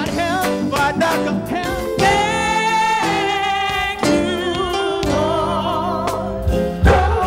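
Live stage music: a singer over a band. About two seconds in, the voice holds notes with a wide vibrato. The music changes abruptly to a different song several times.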